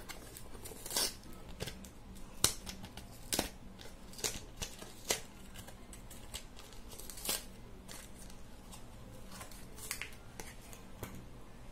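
Cardboard-and-plastic retail pack of a microSD card being pulled and torn open by hand: a series of sharp snaps and crinkles at irregular intervals.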